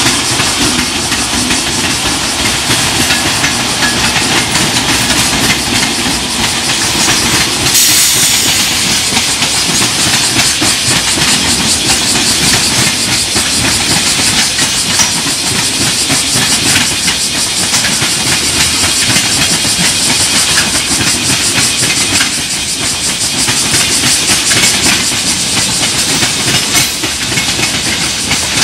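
A JR Freight container train hauled by an EF210 electric locomotive passing close by at speed. The steel wheels on the rails make a loud, steady rumble and hiss as the long line of container wagons rolls past.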